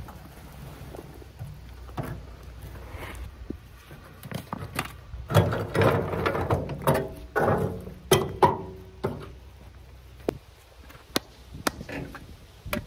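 A wheelbarrow load of soil and rocks tipped out and shaken onto the ground, scraping and rattling through the middle. A few sharp taps near the end: a hammer striking stone.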